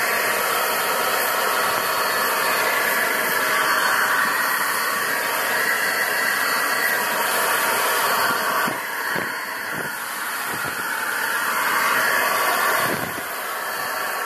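Steady loud hiss of compressed air blown from a nozzle at a touch screen's glass, dipping briefly about two-thirds through and tailing off near the end.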